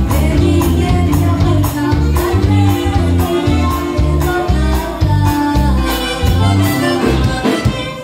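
Live norteño band playing a dance tune: button accordion and saxophone over a steady bass and drum beat, with the music stopping near the end.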